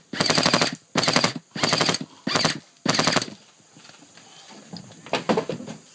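Airsoft guns firing in rapid full-auto bursts: five short bursts in the first three and a half seconds, then a lull with only faint noises.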